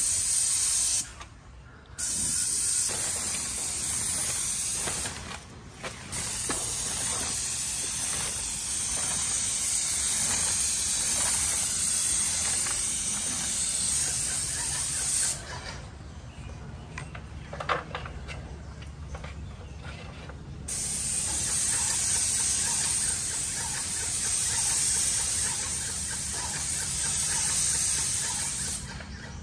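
Airless paint sprayer gun hissing as it sprays primer onto brick, triggered in long passes of several seconds with brief stops between them and a longer stop in the middle. A single sharp click comes during that longer stop.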